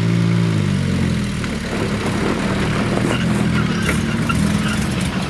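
Old Land Rover engine running; its revs drop in the first second, then it runs steadily while the vehicle pulls slowly away towing another Land Rover on a rope.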